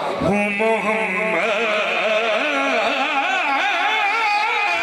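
Man singing a naat, a devotional Urdu poem in praise of the Prophet, unaccompanied into a microphone. He holds one long note from about a quarter second in, then moves into wavering, ornamented melodic runs.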